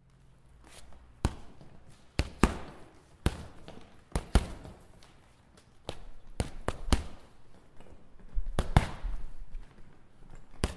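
Boxing-glove punches landing with sharp, echoing smacks, irregular and often in quick combinations of two or three.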